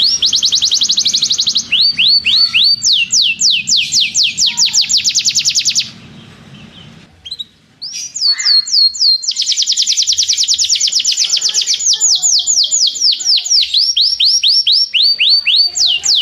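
Domestic canary singing long rolling trills: fast runs of repeated downward-sweeping notes, some so quick they blur into a buzzing roll, broken by a pause of about two seconds in the middle.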